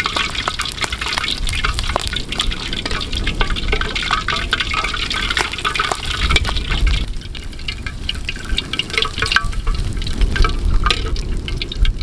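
Hot oil ladled over a boiled pork hock and streaming back into the wok, sizzling and crackling as the skin fries. The crackling is densest in the first half and thins out about halfway through.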